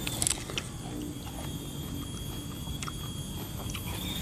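Juicy watermelon being bitten and chewed, with a few short wet crunches, the loudest just after the start.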